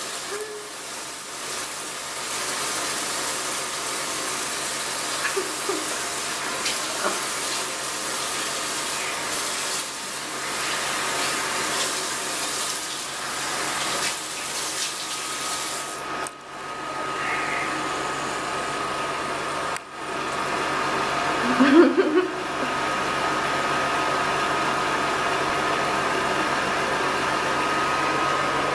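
Bathroom tap running in a steady rush. About sixteen seconds in, a thin steady whine joins the rush, and a brief sound rising in pitch stands out about twenty-two seconds in.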